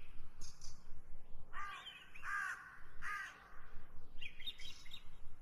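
Crows cawing, three harsh caws in the middle, with smaller birds chirping briefly near the end.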